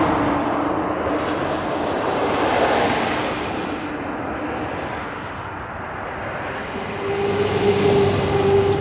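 Cars and trucks passing by on the road, the noise swelling and fading with each vehicle. A steady tone comes in about seven seconds in.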